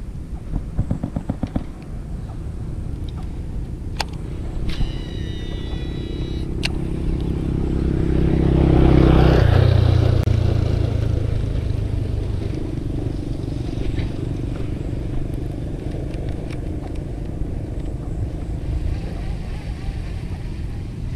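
A motor engine passing close by: it grows louder, peaks about nine seconds in with a sudden drop in pitch as it goes past, then fades to a steady distant hum.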